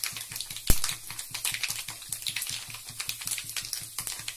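Mustard seeds, urad dal and fenugreek crackling and popping in hot sesame oil in a kadai: the tempering spluttering as it starts to settle, with dense irregular small pops and one sharper pop a little under a second in.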